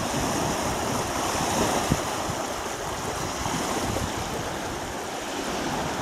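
Strong wind buffeting the microphone over waves washing against the reservoir shore, a steady rushing noise, with one short knock about two seconds in.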